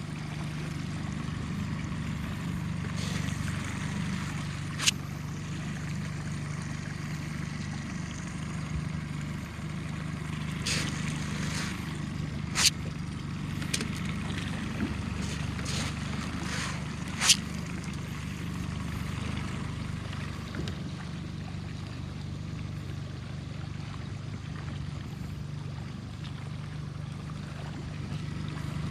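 Small boat's motor running steadily with a low hum, water trickling and gurgling around the hull, and a few sharp knocks now and then.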